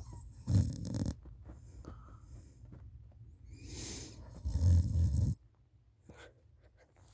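A person snoring in sleep: two loud, low rattling snores about four seconds apart, each lasting around half a second to a second, with softer breathing between them.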